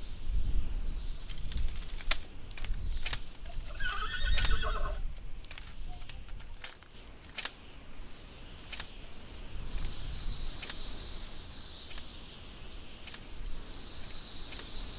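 A horse whinnies once, about four seconds in, among scattered sharp clicks and a low rumble.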